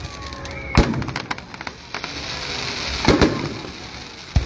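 Aerial fireworks shells bursting: three loud booms, about a second in, about three seconds in and near the end, each trailing off, with scattered crackling between them.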